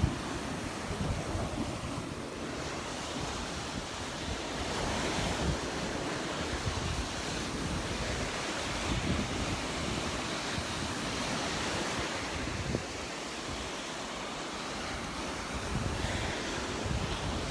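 Gulf of Mexico surf breaking and washing up the sand in a steady hiss, swelling about a third of the way in and again near the end, with wind buffeting the microphone.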